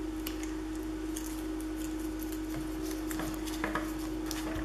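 Faint rustling and light ticks of hands handling film strip ribbon and paper on a scrapbook layout, over a steady hum.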